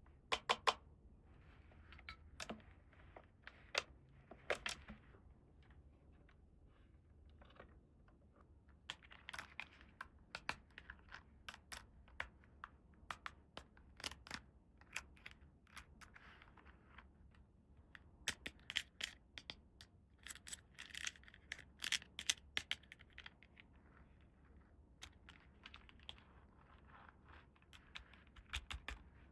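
Hands handling small plastic toy furniture parts and their packaging: scattered sharp clicks and taps, with stretches of crinkling and rustling.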